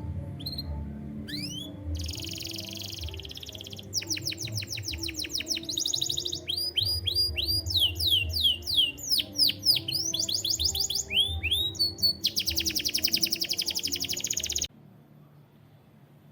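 Canary singing: fast rolling trills and quickly repeated whistled notes, some sweeping down and some up, in phrases that change every second or two. The song stops abruptly near the end.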